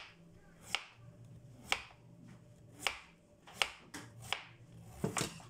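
Kitchen knife peeling a chayote on a cutting board: about seven sharp clicks, roughly one a second, as the knife strokes through the skin.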